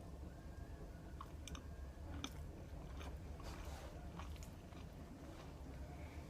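A person chewing food close to the microphone, with scattered small wet mouth clicks and a brief rustly smear about three and a half seconds in, over a low steady hum.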